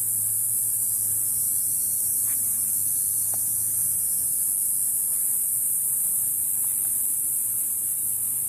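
Steady high-pitched hiss, even and unbroken, with a faint low hum beneath.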